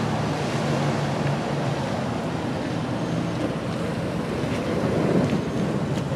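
Wind rushing over the microphone on top of a steady low engine hum, swelling slightly about five seconds in.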